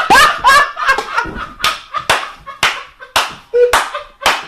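A run of about ten sharp smacks, close together at first and then spacing out to roughly one every half second. Short, squeaky rising sounds overlap the first second.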